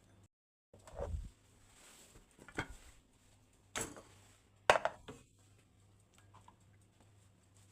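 Kitchenware being handled: a handful of separate knocks and clinks, the first with a dull low thud and the loudest a sharp clink about two-thirds of the way through.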